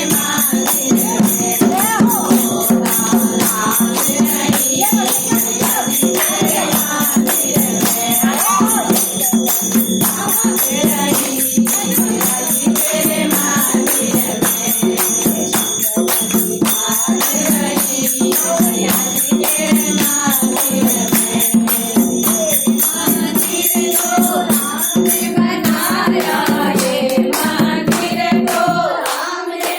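Temple devotional music: a group singing over a steady low drone, with rattling and ringing percussion. The high ringing stops about 25 seconds in.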